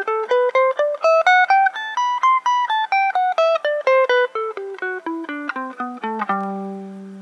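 Strat-style electric guitar playing a G major scale one picked note at a time, from the 15th fret up the neck and back down, about four notes a second. It ends on a low G that is left ringing and fades.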